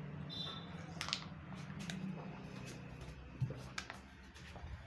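Diesel tractor engines running with a low, steady hum that fades after a couple of seconds, with a few sharp clicks on top.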